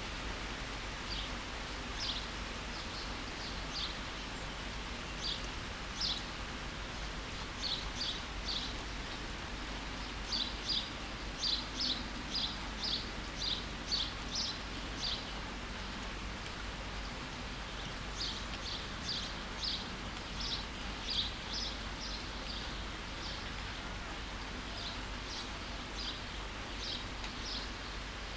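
Steady rain falling, with a bird chirping over it: short, high chirps in quick runs, pausing briefly around the middle before starting again.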